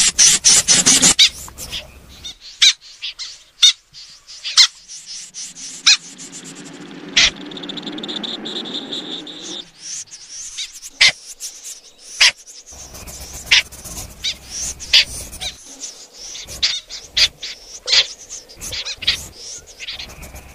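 Snipe calling: short, harsh, sharp notes repeated at irregular intervals. About six seconds in, a rough steady sound with a faint high whistle runs for a few seconds.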